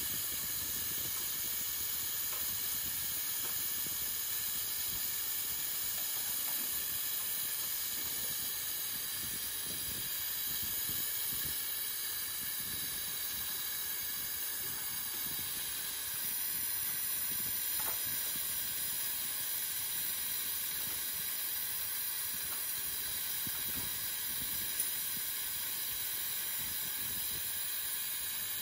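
Refrigerant gas hissing steadily as it is vented from a 4-ton ducted air conditioner to release the system's pressure. There is one faint tick near the end.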